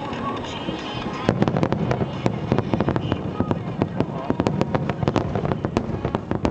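Fireworks going off, a dense rapid crackle of many sharp bursts starting about a second in over a low rumble, with music playing underneath.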